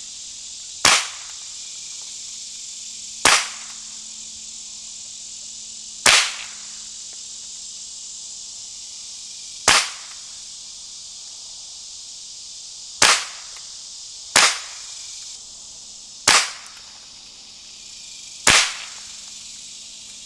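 Marlin Model 60 .22 LR semi-automatic rifle fired eight times, single shots spaced unevenly one to three and a half seconds apart. Each shot is a short, sharp crack.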